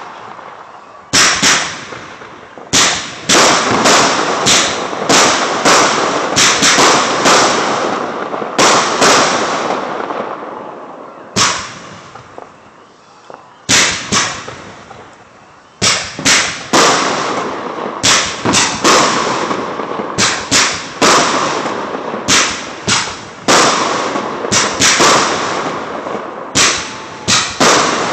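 Aerial fireworks shells bursting in rapid, irregular succession, each sharp bang trailing off in echo. The bangs thin out to a few around the middle, then come thick and fast again.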